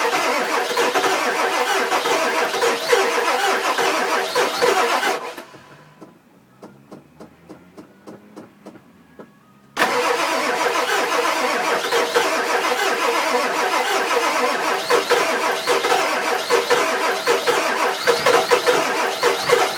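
The 7.3 L Power Stroke diesel of a 2000 Ford F-250 cranking on the starter without catching, a no-start which the owner suspects is down to the injectors. The cranking stops about five seconds in, leaving a few seconds of faint ticking, then starts again suddenly about ten seconds in and runs on without the engine firing.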